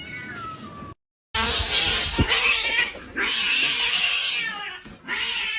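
Domestic cat meowing with a falling pitch, then two long, loud, harsh yowls, and another meow near the end.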